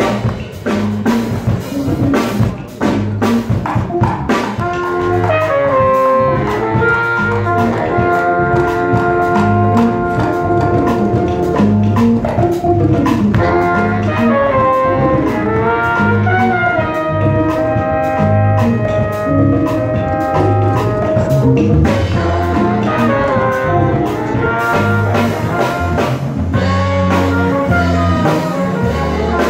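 Live Afro-beat jazz band playing: saxophone and trumpets carry a harmonised melody over electric bass, djembes and drum kit. The horns come in about five seconds in, after a stretch of mostly drums and bass.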